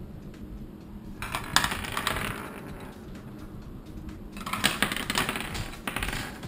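Small toy bowling pins and kit parts clattering and knocking on a tabletop, in two bursts of rapid clicks and taps.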